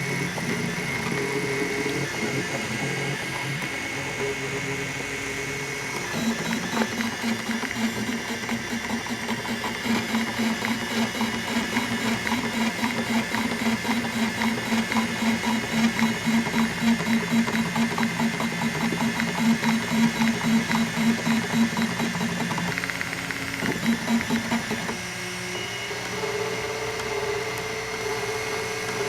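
M3D Micro 3D printer's stepper motors whining as it prints, holding steady tones that shift in pitch as the head changes moves, with a long middle stretch of even, regular pulsing as it runs back and forth.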